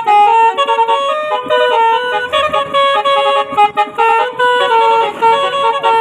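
Basuri, an Indonesian musical bus horn, playing a loud tune. Short held notes step up and down in pitch, often with several notes sounding together.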